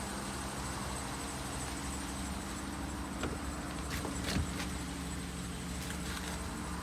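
Steady vehicle engine idle hum, with a few light clicks or taps about halfway through.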